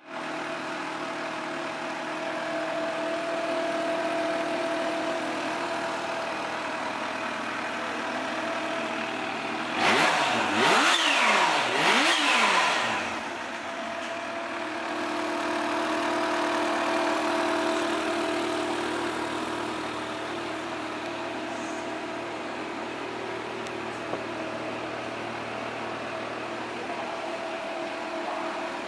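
Kawasaki H2 SX's supercharged inline-four engine idling steadily, revved in a few quick throttle blips about ten seconds in before it settles back to idle.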